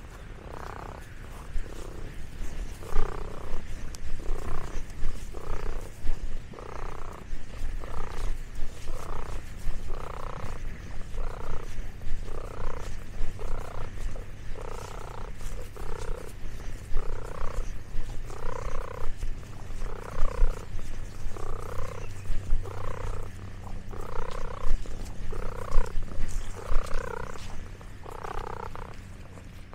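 A domestic cat purring, in a steady run of even pulses about one and a half to two a second.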